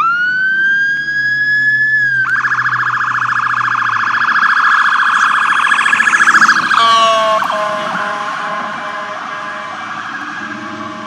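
Police car electronic siren: a rising wail that switches about two seconds in to a fast yelp. Near the seven-second mark it changes to a broken, pulsing pattern that is somewhat quieter.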